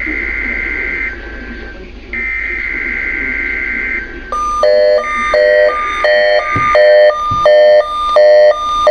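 NOAA Weather Radio weekly test tones received over the radio: two bursts of the buzzy SAME digital alert header about a second apart, then from about halfway a repeating two-note electronic beep alarm, roughly three beeps every two seconds.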